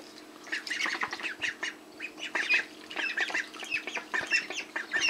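A group of month-old mallard ducklings calling over and over in short, high squawky quacks that run into each other, with light splashing as they paddle about in a tub of water.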